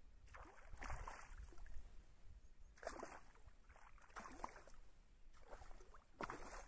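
Shallow muddy water sloshing and splashing in about five separate bursts, as someone wades or works their hands through it.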